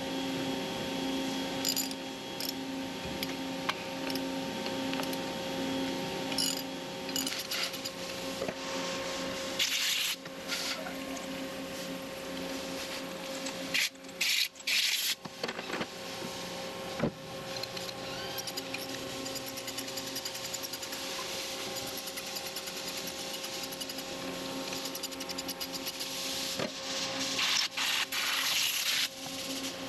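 Several hissing blasts from a compressed-air blow gun clearing chips off a horizontal mill's fixture base, the longest near the end. Under them runs the machine's steady hum. In the first seconds there are metallic clicks and scraping from a T-handle wrench turning a fixture clamp.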